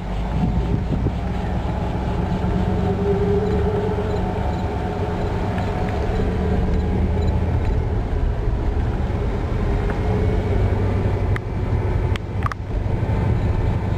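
Vehicle engine and road noise from inside the cabin while driving slowly: a steady low hum.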